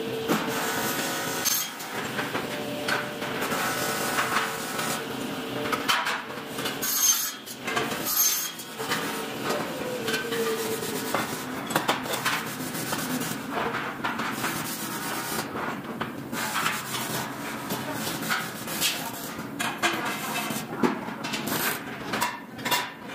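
Workshop noise of aluminium ladder parts being handled on a metal work table: irregular knocks, clinks and scraping of metal profiles over a steady machine hum.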